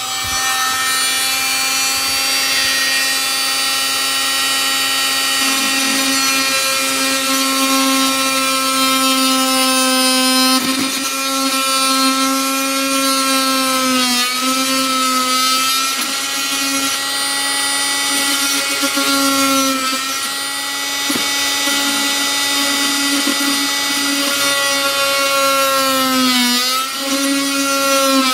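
Oscillating multi-tool with a flat plunge-cut blade running at a steady, high buzz while cutting into the plastic ties of HO-scale model railroad track. Its pitch dips briefly twice, about halfway through and near the end.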